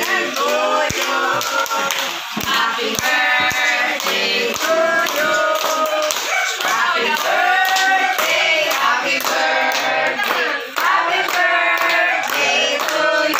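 A group of adults and children singing a birthday song together and clapping along.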